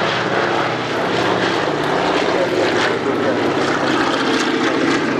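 Junkers Ju 52 trimotor flying past low, its three radial engines and propellers making a loud, steady drone.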